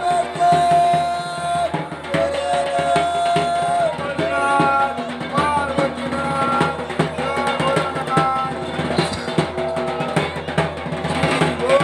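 Festival music: a barrel drum beaten in fast, dense strokes under a melody of long held notes that step up and down in pitch, with crowd voices mixed in.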